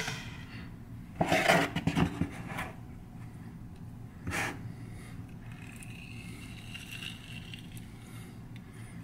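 Kitchen handling noise from a metal hand-held citrus squeezer pressing lime halves over a plastic bowl: a burst of scraping and clatter about a second in, a shorter knock at about four seconds, then quieter handling.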